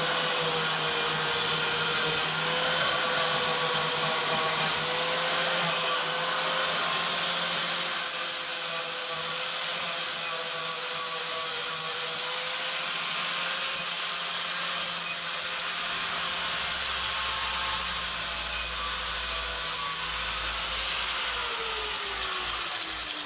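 Angle grinder with a flap disc grinding a steel plate clean, its motor whine holding steady under the grinding noise. Near the end it is switched off and the whine falls away as the disc spins down.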